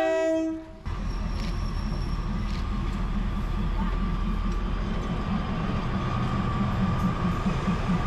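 A train horn ends in the first second. A diesel railcar train then passes close by with a steady low engine rumble, and a low rhythmic pulsing builds in the second half.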